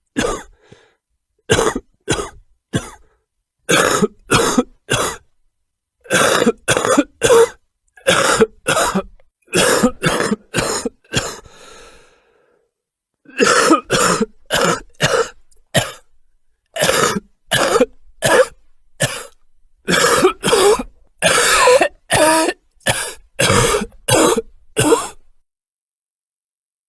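A person coughing repeatedly in fits of several sharp, harsh coughs with short pauses between them, stopping about 25 seconds in.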